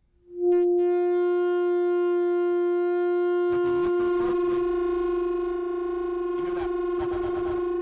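Two aluminium Rijke tubes, pipes with red-hot metal screens wedged inside, held upright and singing together: one loud steady hum rich in overtones that starts sharply just after the opening. From about halfway the tone wavers with a slow beat, because the two pipes are not exactly the same length and are a little out of tune.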